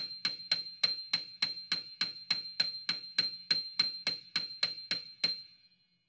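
A small bell-like chime struck over and over at a steady pace, about three strikes a second, each one a bright high ding on the same pitch. The strikes stop about five seconds in and the last one rings out briefly.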